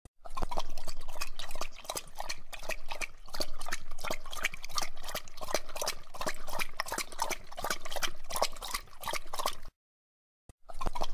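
Water from a bathroom faucet trickling and splattering into the sink basin, with a cat drinking from the stream. The sound is a dense run of quick irregular splashes and drips, and it cuts out for a moment near the end before starting again.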